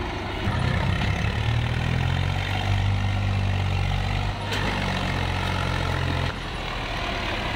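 Swaraj tractor's diesel engine running hard under load as it strains to pull a loaded trolley out of deep wet sand, then easing off sharply a little after six seconds in. A single sharp click about midway.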